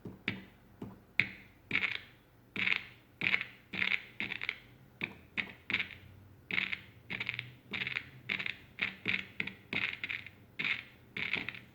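Irregular scratchy crackles from a 1960s Panasonic-built transistor radio's small speaker, two or three a second, over a faint hum: typical of a failing volume control.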